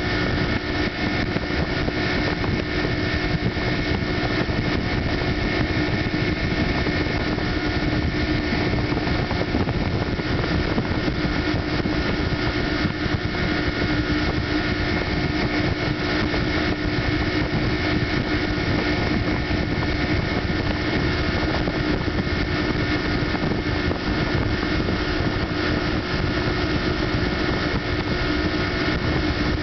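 Tow boat's engine running steadily at speed, heard from on board, with a steady hum of several held tones and a constant rush of water from the wake.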